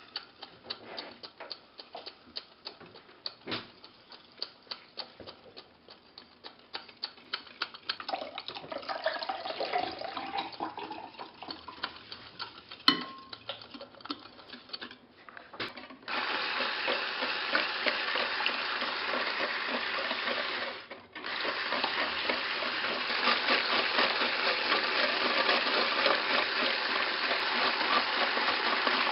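Wire whisk clicking against a glass bowl as a cream cheese and egg yolk batter is stirred, with warm milk poured in partway. About halfway through, an electric mixer's whisk starts beating egg whites with a loud, steady whirr. It stops briefly once and then runs again.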